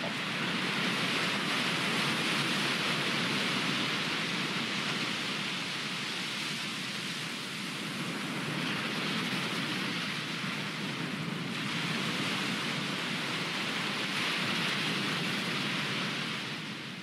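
Ocean surf: waves breaking and washing up the shore in a steady rushing hiss that swells and eases every five or six seconds.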